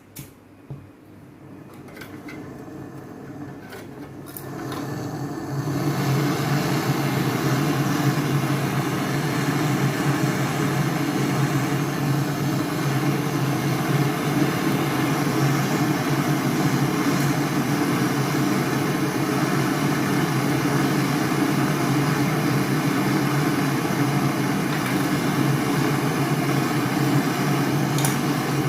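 A machine starts up after a few clicks, builds over several seconds, then runs steadily with a low hum and a broad rushing noise.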